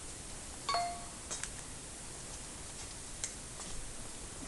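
Trading cards being handled: a few light clicks and taps over a faint steady hiss, one of them with a brief clink-like ring.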